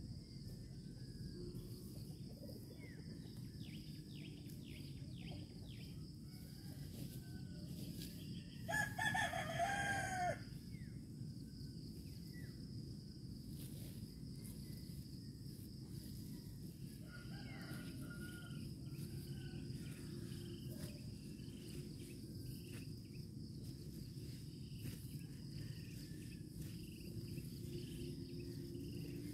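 A rooster crowing once, about nine seconds in, over a steady high insect drone and fainter bird chirps.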